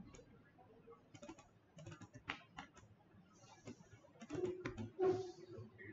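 Computer keyboard keys tapped in scattered, irregular clicks.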